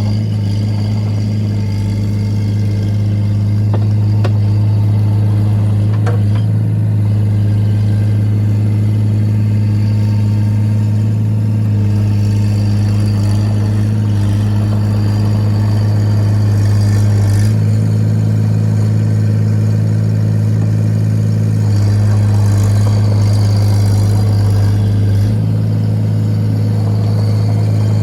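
Excavator's diesel engine running steadily, with a low hum and small shifts in its note every few seconds.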